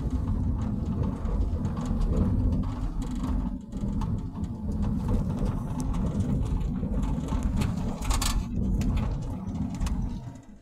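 Road noise inside a moving car: a steady low rumble from the tyres and engine, with small rattles and a brief hiss about eight seconds in.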